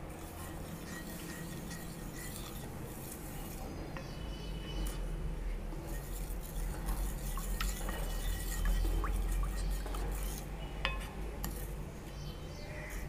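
Wooden spoon stirring a thin milk, egg-yolk and yeast mix in a ceramic bowl, scraping round the bowl with a few light knocks against its side. A low steady hum runs underneath.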